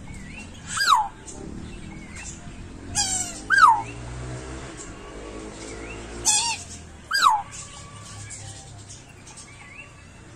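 A small animal giving high, squeaky calls that fall steeply in pitch, five in all: one about a second in, then two near the middle and two more a little later. Faint small chirps recur in the background.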